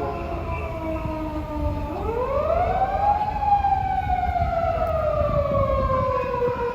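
Japanese police patrol car's siren wailing: the pitch falls, sweeps back up about two seconds in, then falls slowly again, over a low rumble.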